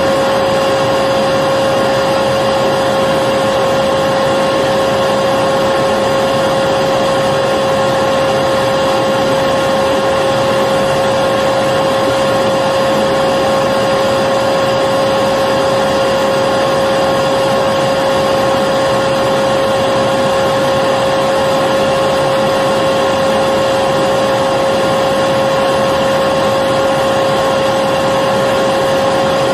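Vacuum cleaner running steadily, a constant motor whine over an even rush of air, with no change in speed.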